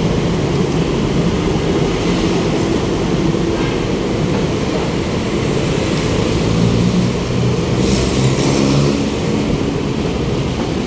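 City road traffic heard from a moving bicycle: a steady rumble of engines and tyres, with a heavier engine passing close about seven seconds in and a short hiss near eight seconds.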